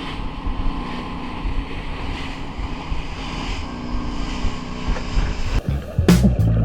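A boat engine running steadily with a low drone, along with wind and water noise. Music with a sharp beat comes in near the end.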